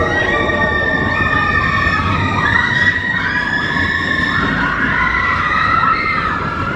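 Roller coaster riders screaming: several overlapping long, high screams over the steady rumble of the coaster train running on its track.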